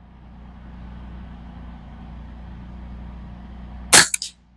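A single shot from a Ruger 10/22 .22 rimfire rifle about four seconds in: one sharp crack with a quick echo. Before it, a steady low rumble.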